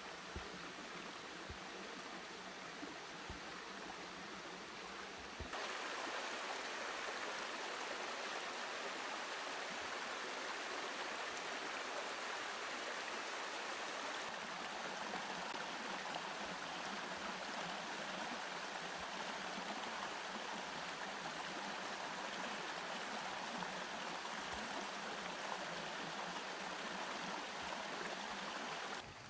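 Shallow stream running over rocks, a steady rush of water that gets louder about five seconds in.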